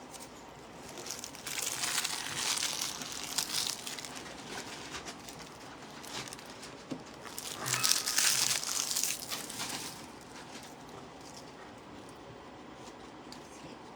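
Foil trading-card pack wrappers crinkling and tearing as packs are torn open and handled, in two spells of rustling, the louder one about eight seconds in, quieter after about ten seconds.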